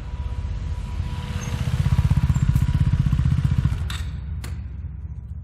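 KTM Duke 390's single-cylinder engine through a Yoshimura Alpha-T slip-on exhaust as the motorcycle passes by, its throbbing exhaust note swelling to a peak around the middle, then fading as it rides away.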